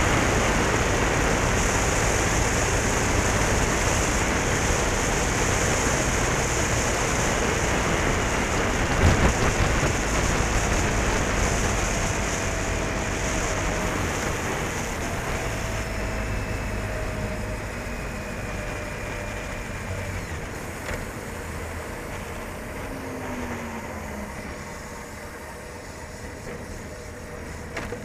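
Wind rushing over the camera microphone and road noise on a moving motorcycle, with its engine running underneath; a single thump about nine seconds in. The wind noise eases through the second half as the bike slows, with a short falling engine tone near the end.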